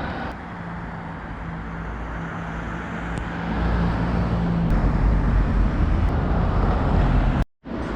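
Town street traffic: a motor vehicle running close by with a low steady hum, the low rumble growing louder about halfway through, then cutting off abruptly near the end.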